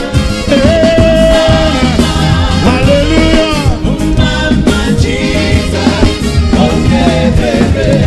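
Live gospel reggae band playing, with a man's lead vocals sung over a steady bass and drum groove.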